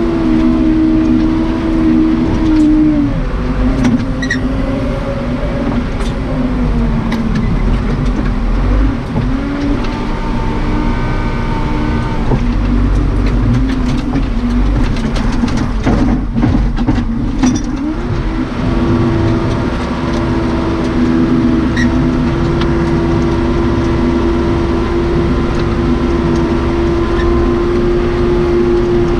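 Case 580 Super K backhoe's Cummins 4BT four-cylinder diesel running at working speed. Its pitch sags and wavers through the middle and then holds steady again. A few short clanks sound over it.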